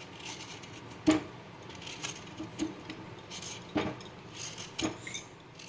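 Peeling knife scraping the skin off a thornless nagphani cactus stem: light scrapes with a few sharp clicks, the sharpest about a second in and two more near the end.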